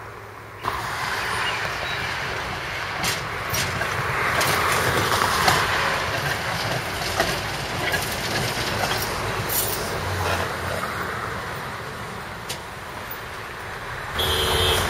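Duewag GT6 articulated tram rolling past on its rails: a steady running noise of steel wheels on track, with irregular sharp clicks and knocks as the wheels cross joints and points.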